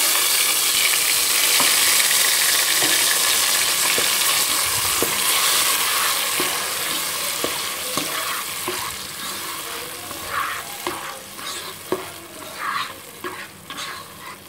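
Tomato paste sizzling hard in hot oil the moment it goes into the pot, the sizzle slowly dying down over several seconds. In the last few seconds a spatula stirs and scrapes through it.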